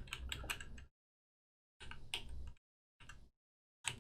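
Computer keyboard and mouse clicking in short runs, cut off between them by stretches of dead silence.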